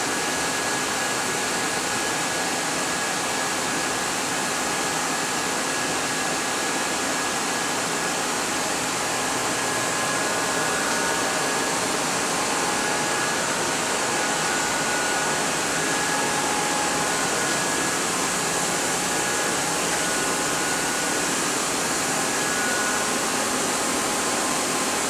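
Steady rushing noise with faint high whistling tones, even throughout, like air-handling or machinery running in a machine shop.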